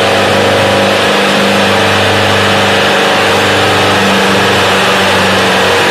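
Two tractors' diesel engines, a Preet and a Hindustan, running flat out under heavy load as they pull against each other in a tug-of-war. The engines hold a loud, steady drone at an even pitch, straining against the chain.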